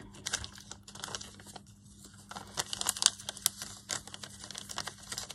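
Clear plastic sheet crinkling and rustling as it is handled, with paper collage pieces shuffled across a cutting mat. The crackling is irregular and grows busier and louder about two seconds in.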